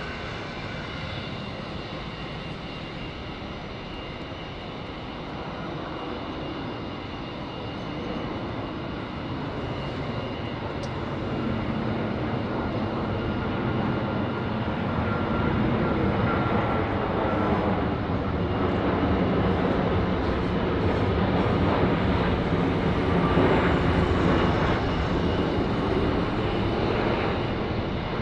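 Boeing 787-9 Dreamliner's twin turbofan engines on landing approach: a steady jet rumble with a whine of fan tones, growing louder as the airliner comes closer and loudest a few seconds before the end.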